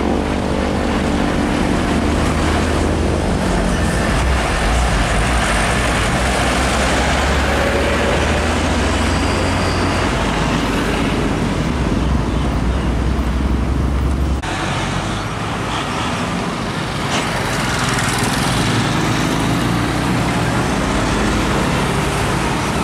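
Heavy diesel trucks passing close by on an asphalt road, with a deep engine rumble and tyre noise mixed with passing motorcycles. The sound changes abruptly about two-thirds of the way through, the low rumble dropping away as one truck gives way to another.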